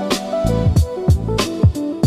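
Background music with a steady beat: drum hits about twice a second under a bass line and plucked melody notes.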